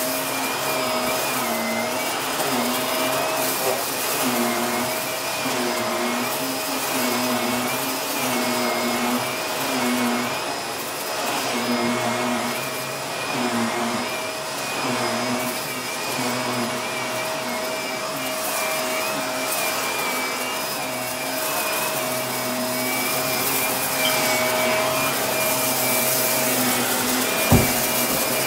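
Shark upright vacuum cleaner running on carpet, its motor hum and whine dipping and recovering every second or two as it is pushed back and forth. A single sharp knock near the end.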